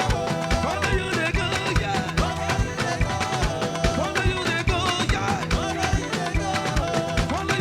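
Live band playing upbeat dance-style praise music, with a steady drum beat of about three strokes a second under gliding melody lines.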